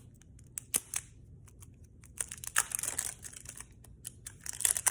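Plastic packaging crinkling as it is handled and pulled open, with a few light clicks at first and denser, louder crinkling from about two seconds in.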